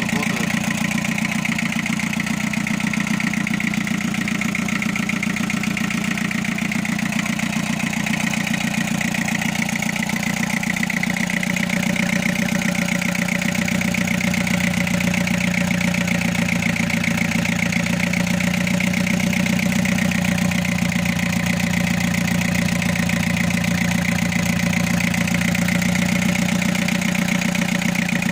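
Mitsubishi Canter 4DR7 four-cylinder engine idling steadily on its first run after a full rebuild, which the owner says is running slightly rough, as if missing on one cylinder. Its low note shifts slightly about halfway through.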